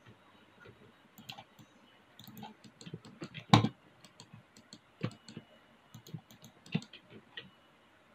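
Computer mouse buttons and keyboard keys clicking irregularly, with one louder click about three and a half seconds in.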